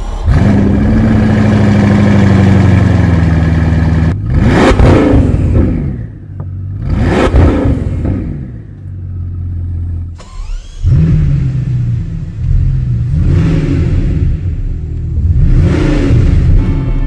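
Bugatti Chiron Sport's 8.0-litre quad-turbocharged W16 engine, stationary, firing up to a high idle that slowly sinks, then revved hard twice, each rev climbing and falling back. About ten seconds in it cuts in again and is revved twice more, less sharply.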